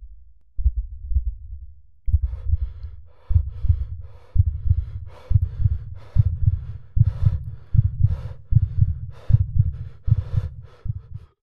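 Deep, heartbeat-like thudding pulse from a dramatic soundtrack, speeding up steadily from about one beat every second and a half to two beats a second. From about two seconds in, a brighter, higher layer sounds with each beat, and the pulse cuts off suddenly just before the end.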